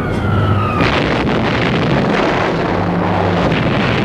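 A falling whistle of a dropping bomb gliding down in pitch, cut off about a second in by a loud bomb explosion whose rumbling blast noise continues.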